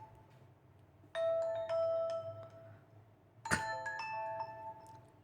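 Two short, bell-like chime melodies from a Nokia Lumia 635 phone's speaker, each a few seconds long, previewed one after the other. A sharp click sets off the second melody.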